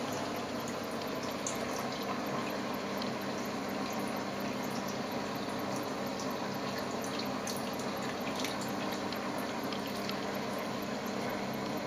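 Reef aquarium's water circulation running: a steady trickle of moving water with a low hum and scattered small drips.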